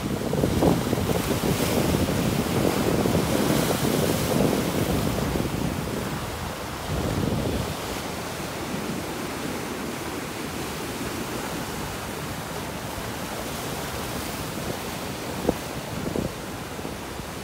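Sea surf breaking and washing over a rock ledge, with wind buffeting the microphone. It is louder and gustier for the first several seconds, then settles to a steady wash, with one short sharp tick near the end.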